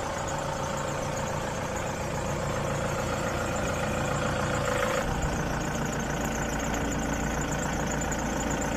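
Diesel engine of a tracked paddy combine harvester running steadily as the machine creeps along a trailer bed. About five seconds in, a steady whine drops out and the low rumble grows stronger.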